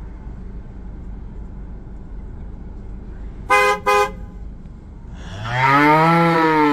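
Two short toots of a car horn, then a cow lowing: one long moo whose pitch rises and falls, ending abruptly.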